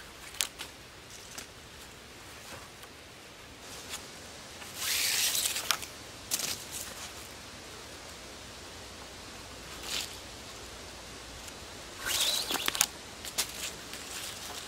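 Cord being pulled and wrapped around birch poles in a lashing. Two longer zipping swishes of cord drawn over bark and through the hands, about five seconds in and again about twelve seconds in, with scattered small rustles and ticks from hands and dry leaves.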